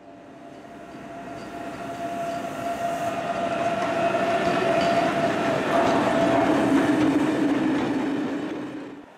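Electric locomotive hauling a long train of hopper wagons past close by: the rushing rumble swells as it approaches, then holds steady as the wagons clatter past, with a steady whine running through.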